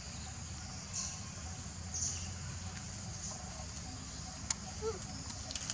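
Steady high-pitched chorus of insects, swelling briefly now and then. A sharp click comes about four and a half seconds in, and a couple of short faint calls near the end.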